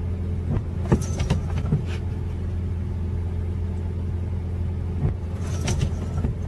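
Car engine running, heard from inside the cabin as a steady low hum, with a few faint clicks about a second in and near the end.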